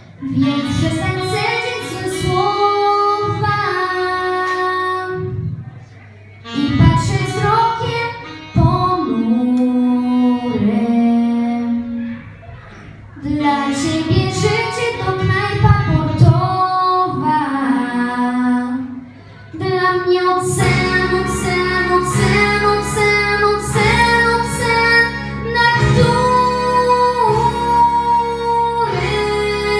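A girl singing a Polish pop song into a microphone over instrumental accompaniment, in phrases with short breaks between them. About two-thirds of the way in the accompaniment becomes fuller and the singing carries on without a break.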